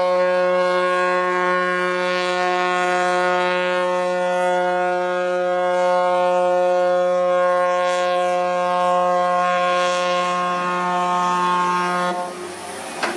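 A large ship's horn sounding one long, steady, loud blast as the ship is driven onto the beach for scrapping; it stops about twelve seconds in.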